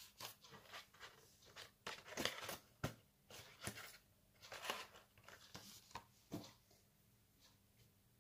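Plastic packaging crinkling and rustling in a string of short bursts, dying away about two-thirds of the way through.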